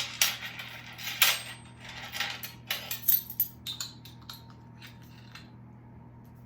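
Measuring spoon and kitchen containers clinking and tapping, a quick run of light clicks lasting about four seconds, as a teaspoon of sea salt is measured out.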